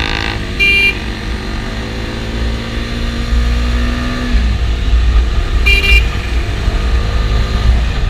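Bajaj Dominar 250's single-cylinder engine pulling under way, its pitch rising slowly until it drops about four seconds in as the rider shifts up, over a low wind rumble on the microphone. A vehicle horn toots briefly twice, about a second in and near six seconds.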